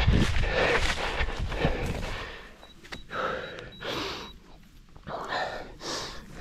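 A runner's footfalls thudding about three times a second, fading after about two seconds, with hard breathing in separate gasps roughly once a second.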